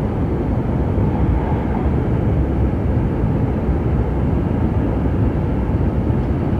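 Steady low rumble of an H5-series Shinkansen running at speed, heard inside the passenger cabin: wheel and track noise with airflow, even throughout.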